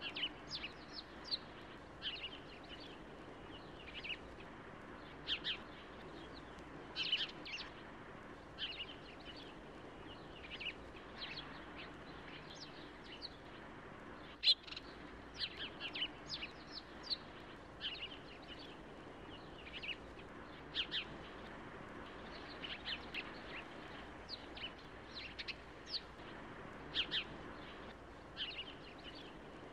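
Small birds chirping: short high calls, singly or in quick little clusters every second or two, over a steady faint outdoor hiss. One sharp click about halfway through.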